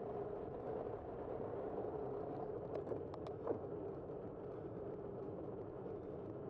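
Steady riding noise from a bicycle in motion, tyre hum and wind on a bike-mounted camera, with a few light clicks about three seconds in.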